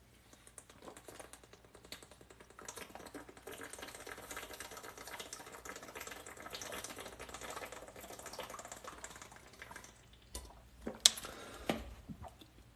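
Faint, rapid light clicking and tapping, with two louder clicks near the end.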